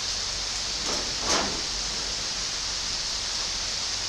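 Steady hiss of heavy rain pouring down outside the garage. A brief rustle or scrape about a second in.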